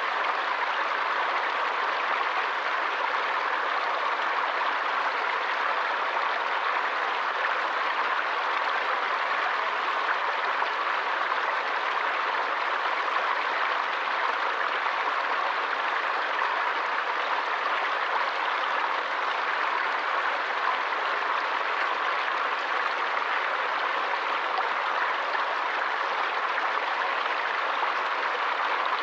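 Forest stream water flowing, a steady even rush with no breaks.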